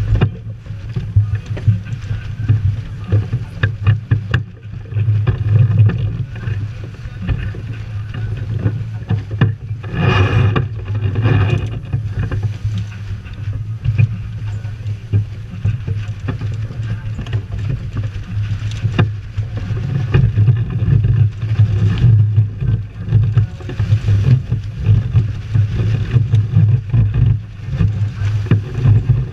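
Strong wind buffeting the microphone in gusts over the rush of water along the hull of a sailboat under sail in a fresh breeze. Two brief louder rushes about ten and eleven seconds in.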